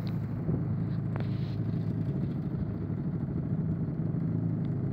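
Small outboard motor running steadily, pushing the sailboat along under power with its sails down, with a light click or two.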